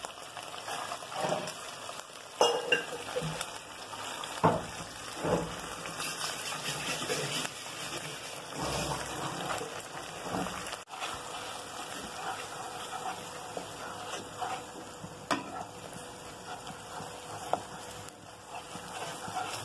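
Ground onion paste sizzling as it fries in ghee in a nonstick kadai, stirred and scraped with a wooden spatula, with a few short knocks of utensils against the pan.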